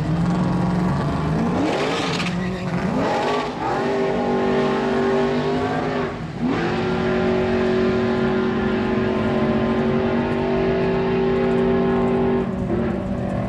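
Drag racing cars launching and accelerating hard down the strip, engine revs climbing through the gears with a brief break for a shift about six seconds in, then held high until they back off near the end.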